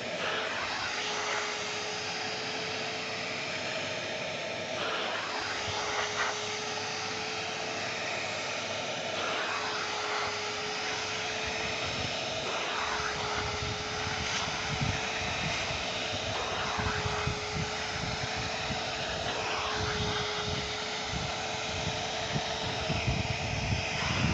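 An electric vacuum cleaner's motor runs with a steady whine and hiss. Its pitch dips briefly every few seconds as the load changes. Low knocks and rumbles from handling join in during the second half.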